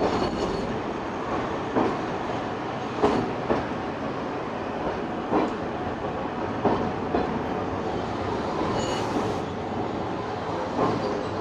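Tosaden Kotsu 700-series tram running along the line, heard from on board: a steady rolling noise with irregular knocks as the wheels pass rail joints.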